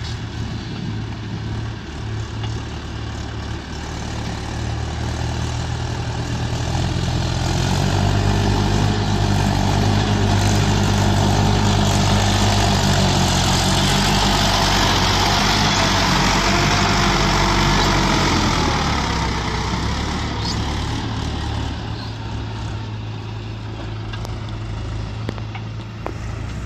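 Heavy diesel machinery engine running; it builds up louder about a quarter of the way in, holds loudest through the middle, then eases back down to a steady idle near the end.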